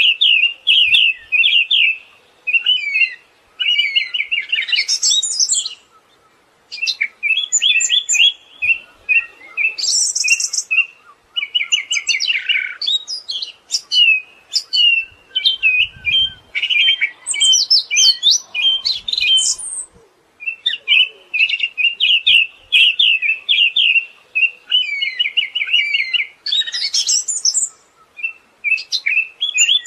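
Siberian thrush singing: long runs of fast chattering, trilled notes broken by short pauses, with thin higher notes mixed in.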